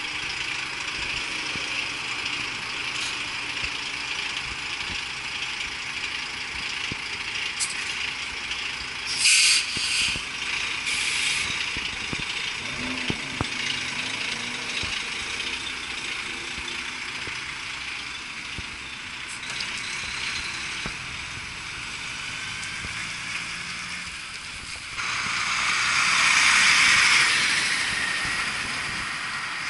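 Road traffic around a slow-moving articulated flatbed lorry: a steady hiss of engine and road noise, with short sharp air-brake hisses about nine and eleven seconds in. Near the end a louder rushing noise swells and fades as the camera draws level with the lorry.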